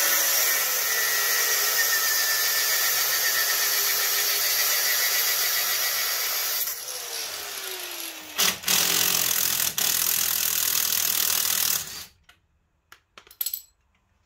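Angle grinder cutting through a seized anti-roll bar drop link: a steady harsh grinding for about seven seconds, then a falling whine as the disc winds down. A cordless power tool then runs for about three and a half seconds, followed by a few faint clicks.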